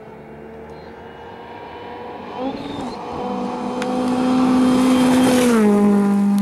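Ford Fiesta R5 rally car approaching flat out on a gravel stage, its engine holding a steady high note and growing steadily louder, then the pitch drops as the car passes, about five and a half seconds in.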